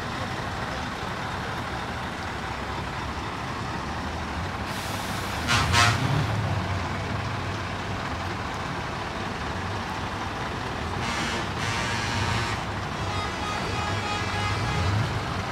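Trucks driving past with their diesel engines running steadily. A short horn blast sounds about five and a half seconds in, and a second horn sound lasts a little over a second near eleven seconds.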